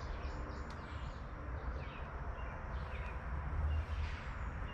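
Outdoor ambience: a few short bird chirps over a steady low rumble.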